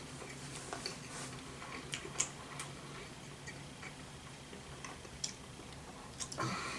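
Sparse, irregular light clicks of a utensil against an instant ramen cup while noodles are eaten, over a faint steady hum, with a brief louder eating noise near the end.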